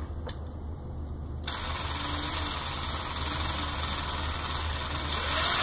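DeWalt cordless drill starts about a second and a half in and runs steadily with a high whine. It is turning a 1/8 inch bit in reverse to bore a hole through a rubber printer timing belt.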